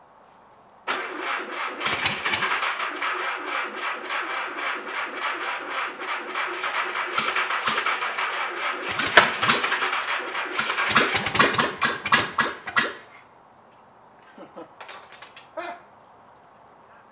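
Bench-started air-cooled Volkswagen flat-four engine fires about a second in and runs loud and rough while the throttle is worked at the carburettor, with sharper bursts in its last few seconds. It cuts off about thirteen seconds in, and a few faint knocks follow.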